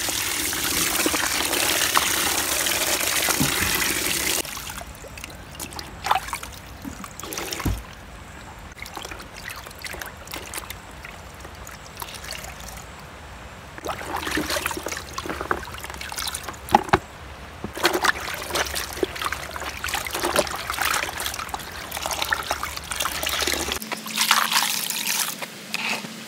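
Water from an outdoor tap running steadily into a plastic bucket, stopping about four seconds in. Then irregular splashing and sloshing as a plush toy and cloth are scrubbed by hand in the bucket water, busier in the second half.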